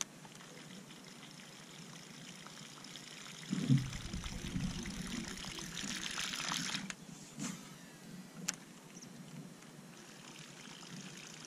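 Topwater fishing lure splashing and gurgling across the water surface as it is reeled in. There is a thump about four seconds in, and the splashing is loudest from there until about seven seconds in.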